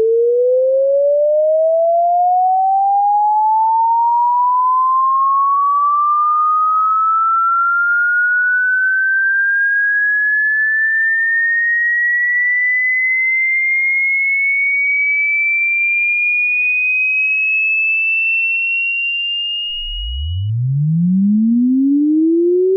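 Synthesized sine-wave sweep: a single pure electronic tone gliding steadily up in pitch from a middle tone to a high whine over about twenty seconds, then breaking off. A new sweep starts from a very low hum and climbs again near the end.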